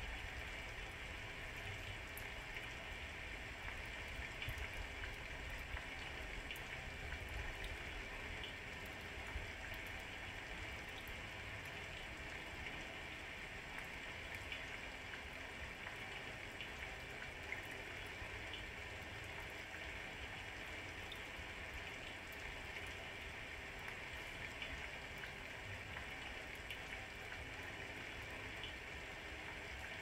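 Steady rain falling, with scattered sharp ticks of individual drops striking through it.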